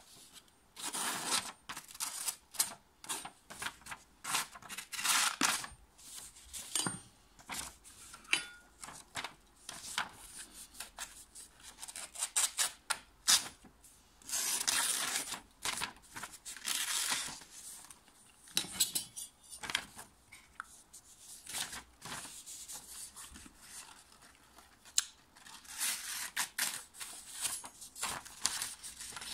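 A freshly sharpened Samura kitchen knife slicing through a hand-held sheet of paper, over and over: many short slicing strokes, a few drawn out to about a second, with the paper rustling between cuts. It is a paper test of how sharp the edge is.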